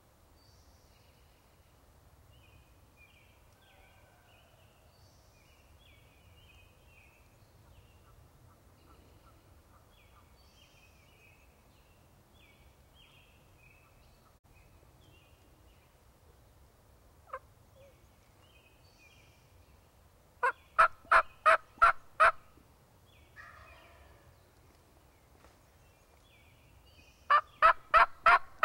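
Wild turkey calling: two loud series of about seven quick, evenly spaced notes, about two-thirds of the way through and again near the end, over faint songbird chirping.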